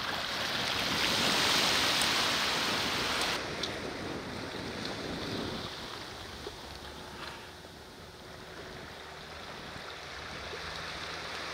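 Small waves washing on the shore. The hiss is loud for the first three seconds or so, then drops suddenly to a quieter steady wash.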